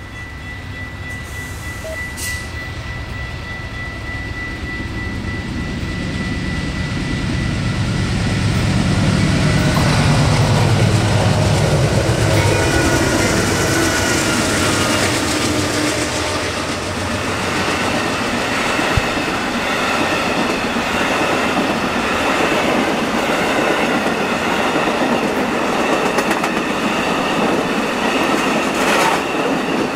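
Amtrak Silver Star passenger train passing close by. The diesel locomotive's engine rumble grows louder as it approaches and goes past about ten seconds in, then the long train of passenger cars follows with a steady rush of wheel noise on the rails. A thin, high, steady ringing tone fades out in the first couple of seconds.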